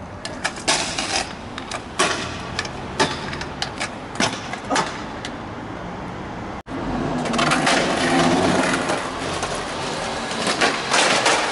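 Stunt scooter wheels rolling over block paving, with sharp clacks of the deck and wheels hitting the ground. About six and a half seconds in, this gives way abruptly to a skateboard rolling over the same paving, a louder, rougher rolling noise, with board clacks near the end.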